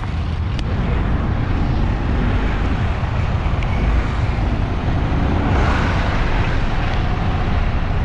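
Loud, steady rumbling noise with wind buffeting the microphone.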